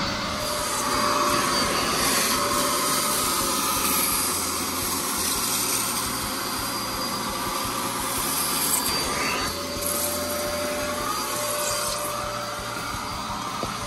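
Vacuum cleaner running continuously, a steady rush of air with a thin whine that fades out for a few seconds and comes back, the tone of the suction shifting as it works.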